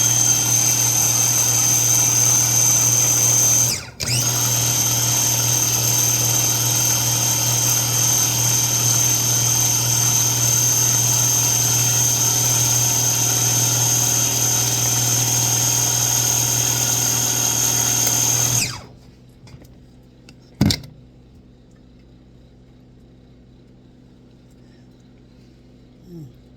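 Electric blender running steadily with a high whine as it grinds peanuts and other nuts that are still grainy into butter. It stops for a moment about four seconds in, runs again for about fifteen seconds, then cuts off, and a single click follows about two seconds later.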